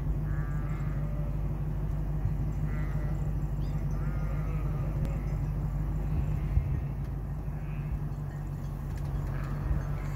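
A flock of sheep bleating several times, short wavering calls, over a steady low rumble.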